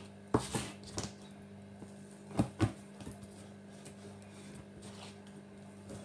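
Kitchen knife knocking on a cutting board while slicing smoked turkey: a few sharp knocks in the first three seconds, then quieter. A steady low hum runs underneath.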